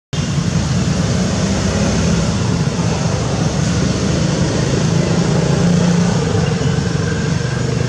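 A motor vehicle engine running steadily, a low hum under a broad noisy wash.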